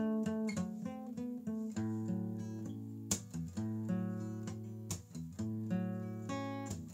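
Solo acoustic guitar, fingerpicked: a melody and chords over a sustained bass line, with two sharp percussive knocks about three and five seconds in.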